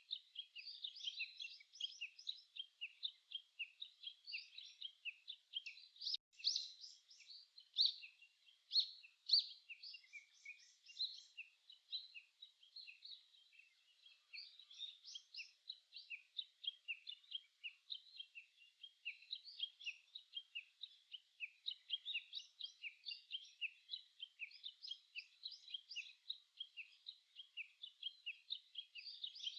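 A chorus of small songbirds singing and chirping, many quick high notes overlapping without a break. A few louder phrases stand out about 6 to 10 seconds in.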